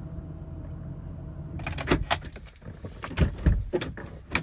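Ford 6.8-litre Triton V10 idling, heard from inside the cab as a steady low hum. From about a second and a half in, a run of clicks, knocks and several heavy thumps of someone moving about in the cab covers the idle.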